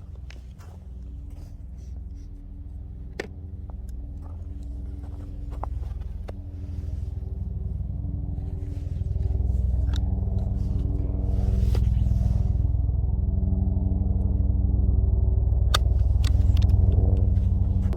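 An engine running steadily with a low hum that grows gradually louder, with scattered sharp clicks and knocks over it.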